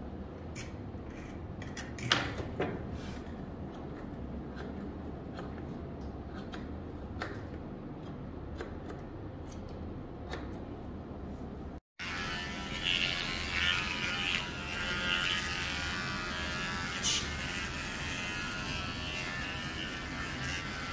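Grooming scissors snipping through a dog's coat, a scattering of sharp clicks over a low background. Just past halfway, after a short break, an electric pet clipper runs steadily as it shaves the dog's body.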